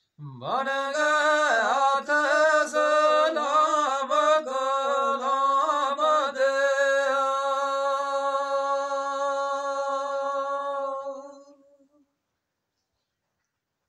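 A man singing unaccompanied in a high voice, a devotional song: a winding, ornamented phrase, then one long held note that fades out about twelve seconds in.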